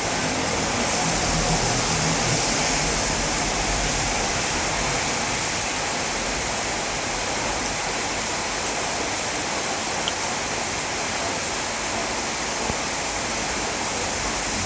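Rain falling steadily: an even hiss with no break.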